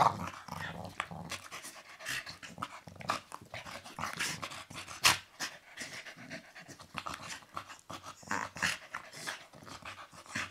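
Two dogs play-fighting, panting and huffing in short, irregular bursts, with a louder burst about five seconds in.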